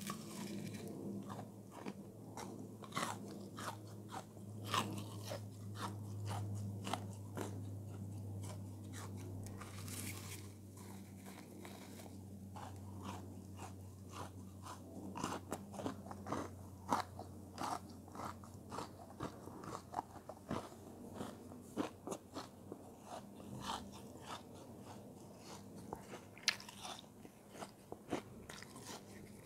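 Close-up biting and chewing of a frozen, frost-covered chunk: irregular crisp crunches, about one or two a second, over a low steady hum that fades out about two thirds of the way through.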